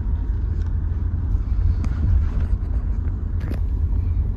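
Car driving, a steady low rumble of engine and tyres heard inside the cabin, with a couple of faint clicks.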